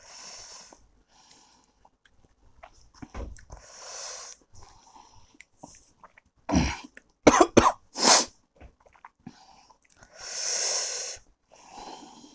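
A man coughing, about four sharp coughs in quick succession in the middle, between long hissing breaths through the mouth: his reaction to the burn of the extremely hot Jolo chip he has just eaten.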